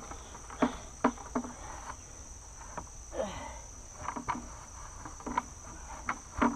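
Steady high-pitched insect chorus, with a scattering of light knocks and clatter from a plastic bucket being handled and set upright, and one short grunt-like vocal sound about three seconds in.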